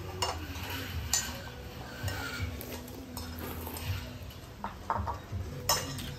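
Spoons clinking and scraping against ceramic soup bowls as soup is eaten: scattered sharp clinks, the loudest near the end.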